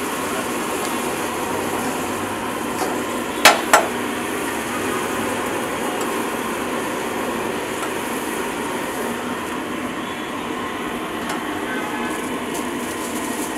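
A metal ladle knocking twice in quick succession on the rim of a large round steel griddle pan, about three and a half seconds in, over steady background noise.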